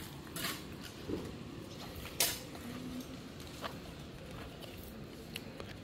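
A few scattered light clicks and knocks, the loudest about two seconds in, over a steady outdoor background hiss.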